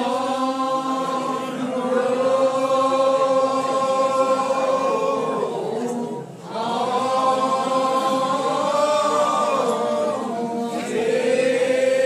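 Congregation singing a lined-out hymn unaccompanied in the slow Old Regular Baptist style, many voices drawing out long notes that glide slowly between pitches. There is a brief break between phrases about six seconds in.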